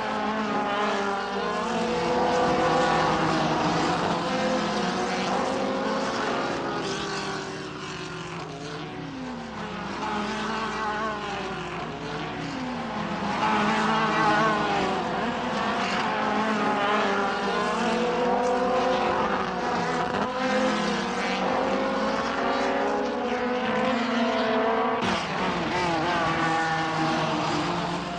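Formula race car engines running at high revs, several at once and overlapping, their pitches gliding up and down as the cars slow for corners and accelerate away. There is a slightly quieter stretch about a third of the way through.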